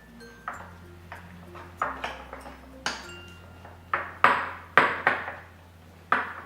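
Spoon knocking and scraping against a bowl while stirring a thick semolina and curd batter: a run of irregular clinks with short ringing, loudest and closest together around the fourth and fifth second.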